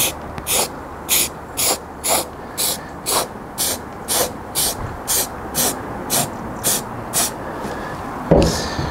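Aerosol can of Hammerite spray paint being shaken before spraying, its mixing ball rattling in short, even bursts about twice a second. The rattling stops and a single thump follows near the end.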